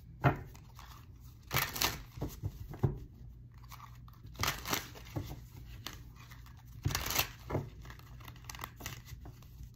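A tarot deck shuffled hand over hand, the cards rustling and slapping together in short, irregular spurts.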